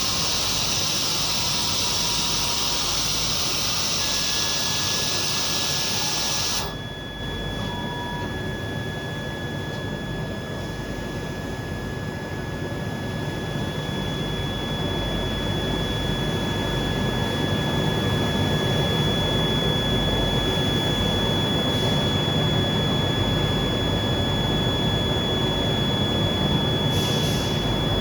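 Automated circuit-board cleaning machine running: a loud high hiss stops suddenly about seven seconds in. After that a steady running noise with a low rumble and two thin steady whines continues, growing slightly louder.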